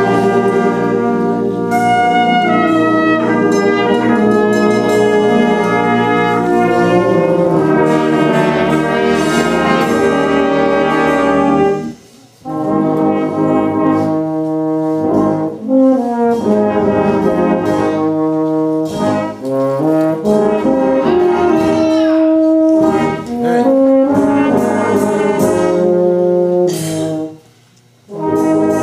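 A brass band of cornets, trombones, euphoniums and tubas playing full, sustained chords, with short breaks between phrases about twelve seconds in and near the end.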